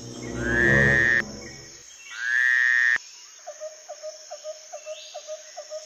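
Two loud animal-like calls, each sliding up in pitch and then held before cutting off sharply: dinosaur sound effects from edited-in film footage. After them a quieter rhythmic chirping, about three a second.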